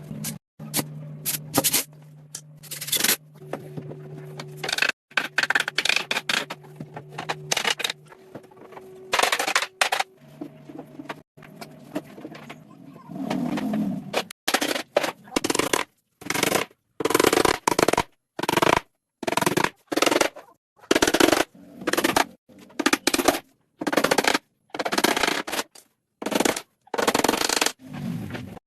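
Hand tools working wood: a run of short, sharp, noisy strokes, uneven at first and settling to about one a second in the second half, with a faint steady hum under the first third.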